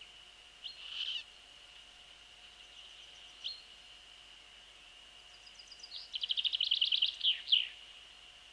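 A small songbird calling: a few short high chirps, then about six seconds in a fast trill of roughly a dozen notes ending in two falling notes.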